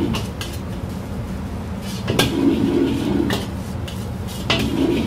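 Metal wok ladle clanking and scraping against a steel wok as rice and egg are stir-fried and tossed, with sharp clanks, often two close together, every second or two. A steady low rush from the wok burner runs beneath.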